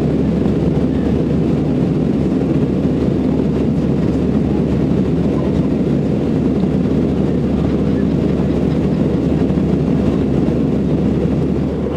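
Steady cabin drone of an Airbus A319 in cruise: an even, mostly low-pitched rush of airflow and jet engines heard from a seat inside the cabin.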